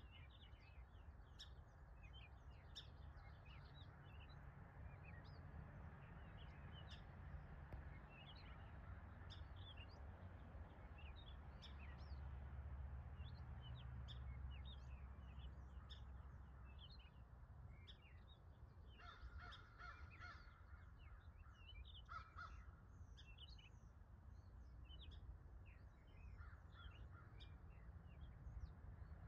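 Faint birdsong: many short, high chirps from several birds, with a harsher, lower call twice about two-thirds of the way through, over a low steady rumble.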